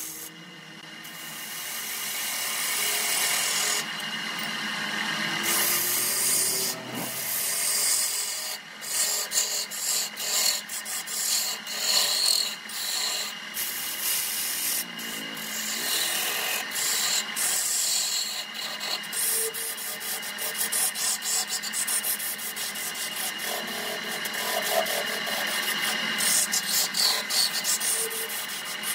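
Turning tool cutting into spinning wood on a wood lathe, shavings tearing off with a steady rough scraping. From about eight seconds in the cutting comes in short, uneven strokes.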